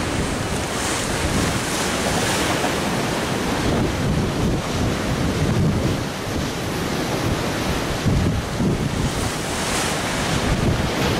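Strong wind buffeting the microphone over a choppy sea, with waves breaking and washing in surges that swell about a second in and again near the end.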